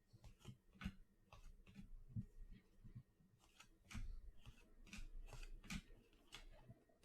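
Faint, irregular clicks and soft slides of cardboard trading cards being handled and flipped through one by one.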